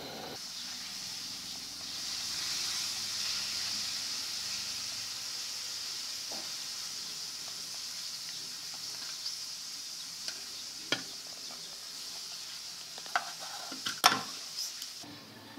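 Steady kitchen hiss, loudest in the first few seconds and slowly fading, with a few sharp clinks of kitchenware near the end, the loudest about 14 seconds in.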